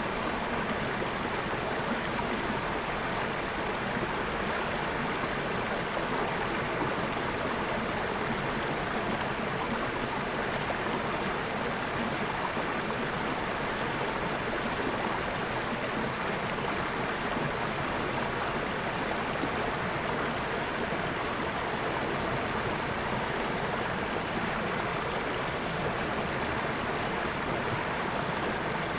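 Flowing water, a steady, even rushing like a stream running over rocks, with no break or change.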